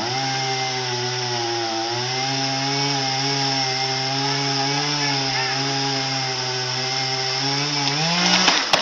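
A small engine running steadily at a constant speed, then revving up near the end.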